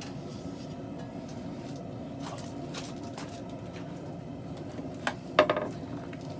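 A steady low mechanical rumble, with two sharp clicks close together about five seconds in.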